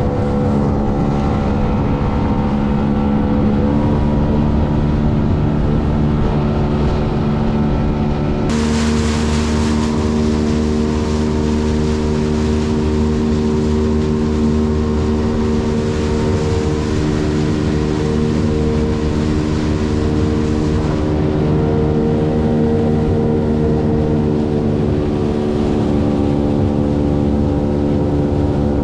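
Jet boat engine running steadily under way, a continuous loud drone with the rush of water. About eight seconds in the sound changes suddenly: more hiss comes in and the engine note shifts.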